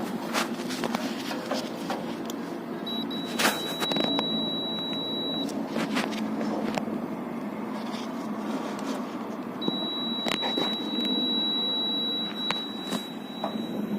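A clamp meter's continuity beeper sounding a steady high beep twice, once for about two and a half seconds and again from about ten seconds in, as the probes touch across the motor windings, with scattered clicks of probe handling over a steady background hum.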